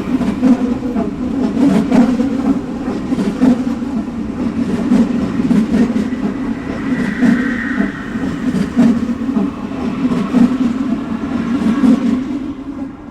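Subway train running on its tracks: a steady rumble with repeated clicks of the wheels over rail joints. There is a brief high squeal around the middle, and the sound starts fading away near the end.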